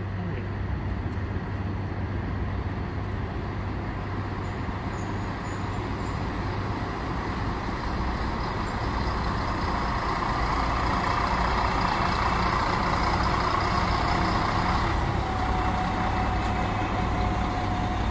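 Polish SA105 diesel railbus pulling into the platform: its engine runs with a steady low hum while the rolling noise grows louder as the railcar draws alongside, and a thin steady whine sounds for the last couple of seconds as it comes to a stop.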